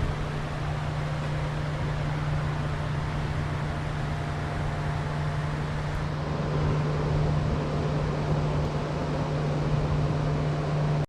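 Greenhouse ventilation fans running: a steady low hum under an even rush of air.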